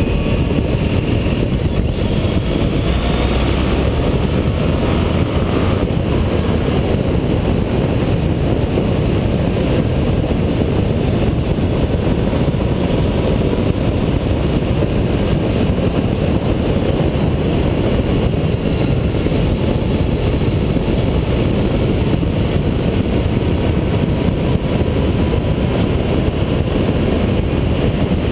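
Onboard sound of a Honda ST1300's V4 engine cruising at highway speed, buried in a steady rush of wind and road noise.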